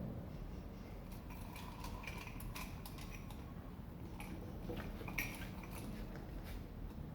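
Scattered faint clinks and taps of hard objects being handled and set down, over a low steady hum.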